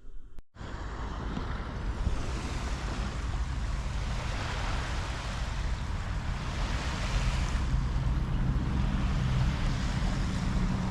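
Surf washing on a beach, with wind buffeting the microphone. It starts abruptly about half a second in and keeps up a steady rush.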